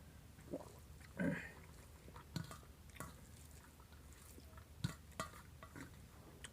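A person chewing food with the mouth open, with quiet wet smacks and small clicks at irregular moments and a louder smack about a second in.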